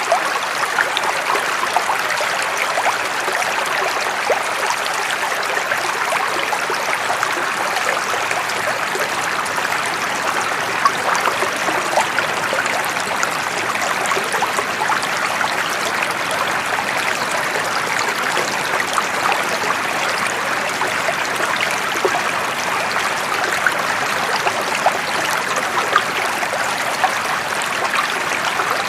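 Flowing water running steadily, with fine trickling and splashing in it.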